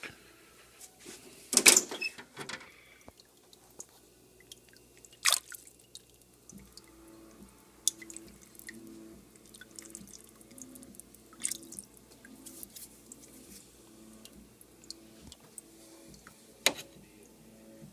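Aquarium water splashing and dripping about two seconds in, then muffled underwater noise from inside the tank, with sharp clicks and pops every few seconds and a faint low pulsing hum underneath.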